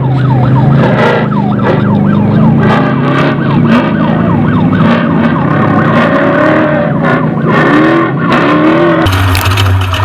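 Off-road race truck's engine running hard, its pitch swooping up and down in quick repeated glides, about three a second, over a steady low drone. The sound changes abruptly near the end.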